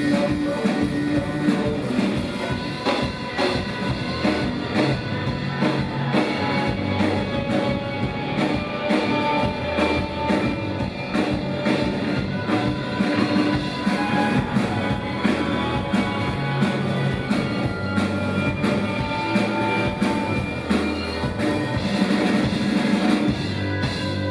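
Live rock band playing an instrumental passage with no vocals, a drum kit keeping a steady beat under guitar.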